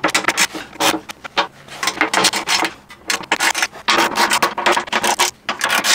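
Ratchet wrench clicking in repeated strokes as it tightens the mounting bolts of an aluminium skid plate on a truck's underside.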